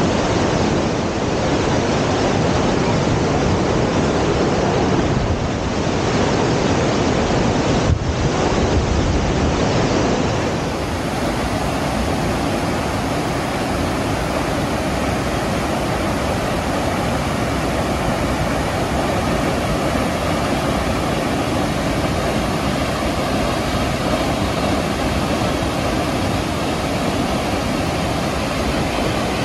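Waterfall: a steady, loud rush of falling water, continuing across a cut to another recording about ten seconds in.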